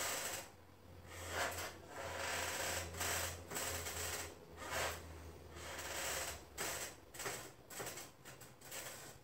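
Hands rubbing and stroking along the outer thigh in an iliotibial band massage: repeated soft swishing strokes, irregularly spaced. A low steady hum runs under the first two-thirds.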